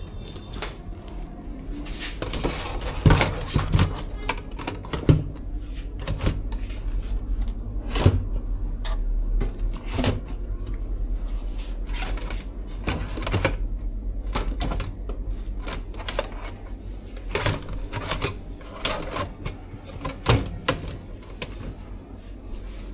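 Irregular clicks, knocks and light clatter as small containers and items are handled and set down while a food stall is tidied, over a steady low hum.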